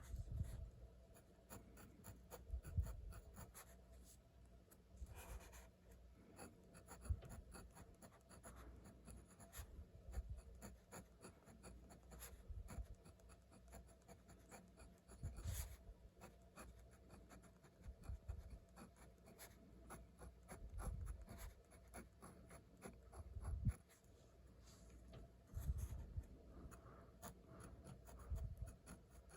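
Pen writing on paper, faint scratching strokes as Japanese characters are written by hand. Irregular low rumbles come and go throughout; these come from the scaffolding of a nearby construction site rattling in strong wind.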